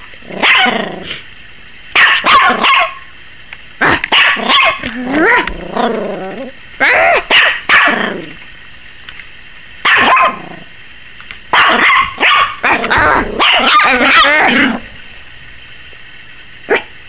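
Yorkshire Terrier puppy barking in repeated bursts of sharp, high barks with short pauses between them, barking at the camera close in front of her, which the owner thinks frightens her.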